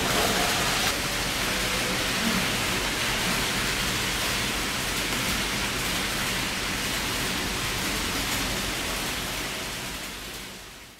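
Model trains running on a layout: a steady whirring hiss of the small motors and wheels on the track, fading out near the end.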